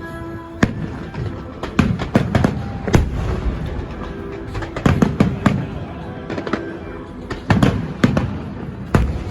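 Fireworks display: an irregular run of sharp bangs and deeper booms, several a second at times, some followed by a low rumble.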